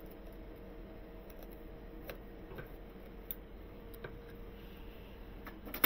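Scattered light clicks and taps of metal parts being handled at a workbench, with one louder, sharp knock near the end, over a faint steady hum.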